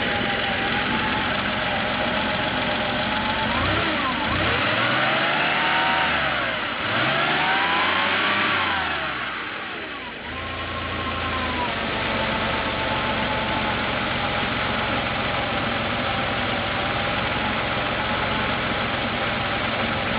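1988 Porsche 911 Carrera's air-cooled 3.2-litre flat-six idling, blipped twice in quick succession a few seconds in, each rev rising and falling back, then settling to a steady idle again.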